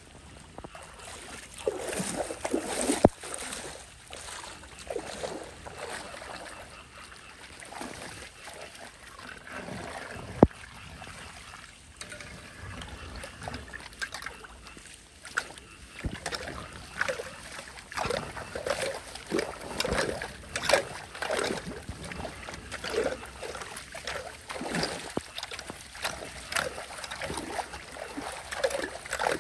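Shallow floodwater splashing and sloshing as a hand tool and hands stir and poke at a clogged street drain beneath the water, with two sharp knocks about three and ten seconds in. The splashing comes in short irregular bursts, busier in the second half.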